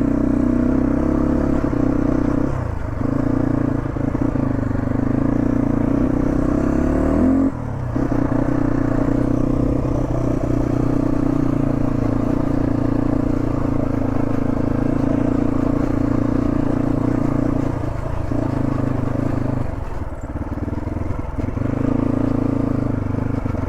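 Motorcycle engine running under way, pitch rising as it revs up and dropping sharply about seven seconds in, with a few brief easings of the throttle after that. Scraping and clattering mixed in.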